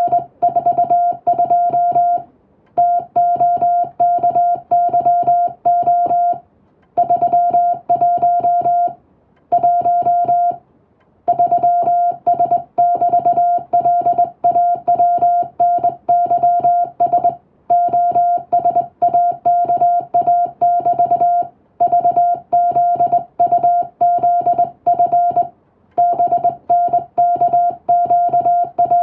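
Morse code (CW) tone sending English text: one steady beep keyed on and off in a fast run of dots and dashes, with short pauses between words.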